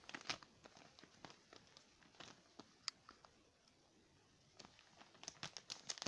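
Faint crinkling of a metallised anti-static bag being handled: a few scattered crackles at first, then more frequent ones near the end.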